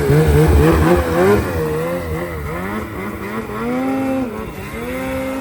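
Ski-Doo Summit Edge 850 two-stroke snowmobile engine revving, its note rising and falling repeatedly with the throttle, loudest at the start and held steadier for moments in the second half.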